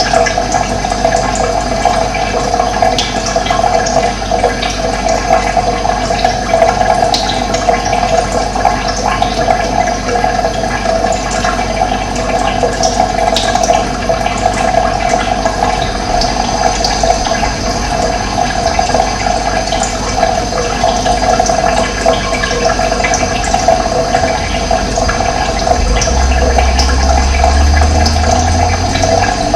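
Steady rush of running water, like a stream or small cascade, with occasional short, high bird chirps over it.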